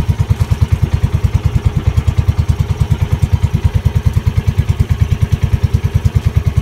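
Outrigger boat's (bangka's) small engine running steadily under way, a rapid, even chugging of about ten beats a second.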